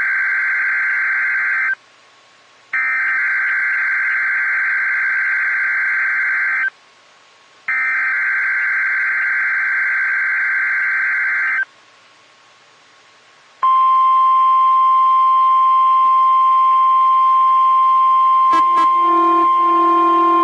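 NOAA Weather Radio weekly test alert. Three SAME digital header bursts: harsh warbling data screeches about four seconds each, with a second's pause between. Then, about 14 seconds in, the steady 1050 Hz warning alarm tone starts. About 18 seconds in, a few clicks are followed by a lower steady buzzing tone joining the alarm: the Midland WR120 weather radio receiver's own alert triggering late.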